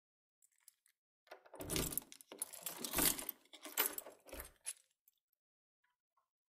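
Sound effect under an animated logo: about three seconds of clattering, rattling noise with three dull thuds inside it, starting a little over a second in and stopping abruptly.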